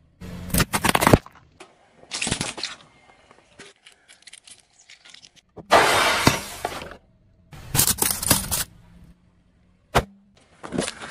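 A car tyre rolling over and crushing small objects: several separate bursts of crunching and cracking, with a sharp snap near the end.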